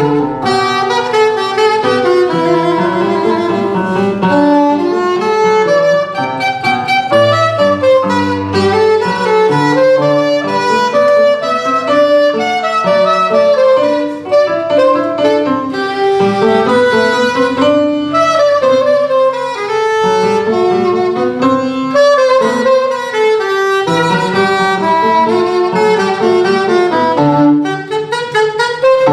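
Live instrumental ensemble playing Baroque music: several melodic lines of held notes moving in steps together, without a break.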